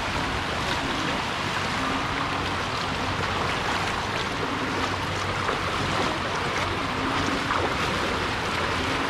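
Feet wading and splashing through ankle-deep floodwater, over a steady rush of running water and wind on the microphone.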